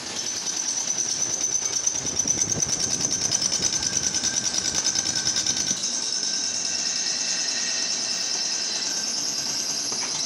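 Metal lathe running in a machine shop, with a steady high-pitched whine and a fast rhythmic clatter of about five beats a second that evens out into a steadier running sound about six seconds in.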